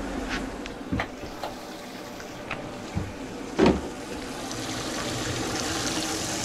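Kitchen faucet running into a stainless steel sink, testing a drain line just cleared of grease, the water growing louder toward the end. A few knocks before it, the loudest a single thump about three and a half seconds in.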